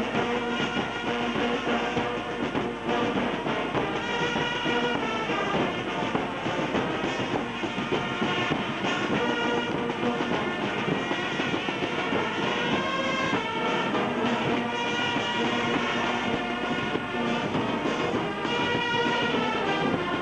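Brass band playing, several horns holding notes together.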